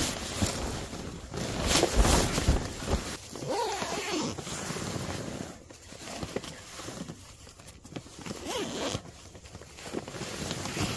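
Sleeping bag zipper being pulled, with nylon fabric rustling and shifting as a person settles into the bag in a hammock.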